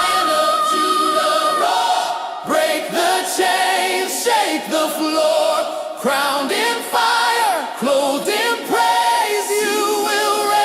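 Choir singing a worship song with swooping, gliding vocal lines and the bass dropped out.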